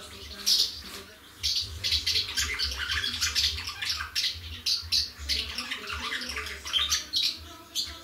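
Swallows twittering, several birds at once in rapid chirps and trills. The calls are sparse for the first second or so, apart from one loud chirp, then turn into a dense, continuous twitter.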